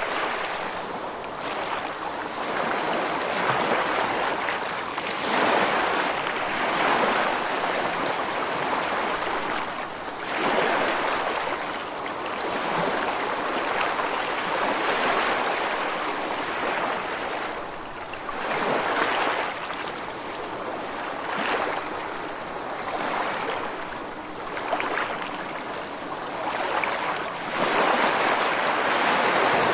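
Ocean waves washing in a continuous rushing surf that swells and eases every few seconds.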